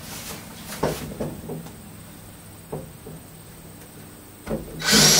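A few scattered knocks and clunks, about a second apart at first, then a louder, hissy clatter near the end.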